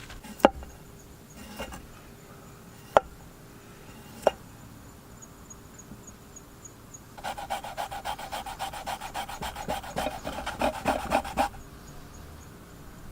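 A few sharp clicks or knocks, then about four seconds of fast, even rasping strokes, like hand food prep against a board or grater, stopping abruptly.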